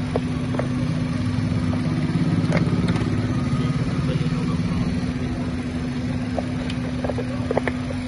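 Suzuki M15 four-cylinder engine idling steadily, heard from the open engine bay. It gets slightly louder in the middle, and a few light plastic clicks come from the fuse box cover being handled.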